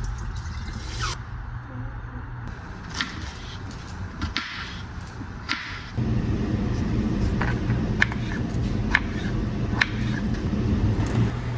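Kitchen food preparation: scattered light clicks and knocks over a steady low hum, which gets louder about six seconds in.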